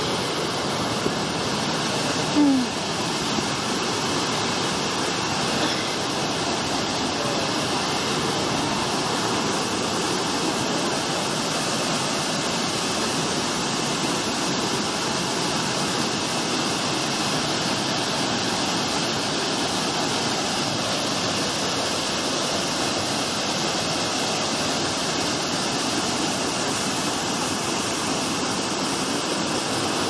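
Liffey Falls, a tiered rainforest waterfall, roaring steadily: an unbroken rush of falling water.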